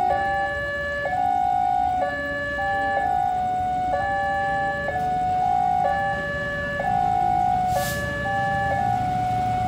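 Two-tone electronic railway level-crossing alarm, alternating a high and a low tone over and over, as a train approaches. A low rumble builds toward the end, and there is a brief hiss near the end.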